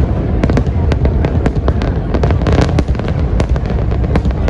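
Aerial fireworks display: shells bursting in quick succession, a dense run of sharp bangs and crackles over continuous low booming.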